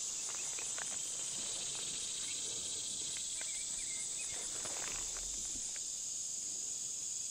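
A steady, high-pitched chorus of summer insects droning without a break, with a few faint ticks now and then.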